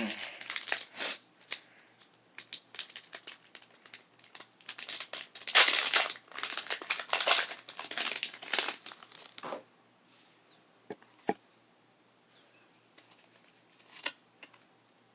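Foil wrapper of a Pokémon card booster pack crinkling and being torn open, a dense crackle for about nine seconds. After that it goes quiet apart from a few light clicks as the cards are handled.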